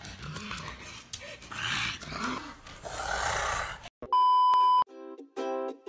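A pug grunting in an uneven, noisy recording. About four seconds in comes a loud, steady TV test-pattern beep that cuts off suddenly after under a second. It is followed by plucked ukulele intro music.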